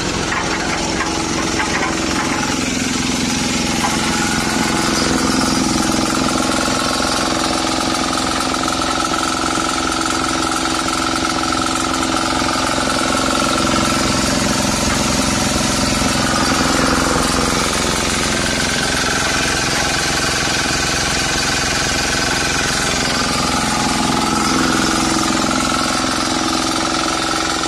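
Yanmar 7 hp single-cylinder diesel engine running steadily with a rapid clatter, driving a concrete bagger mixer.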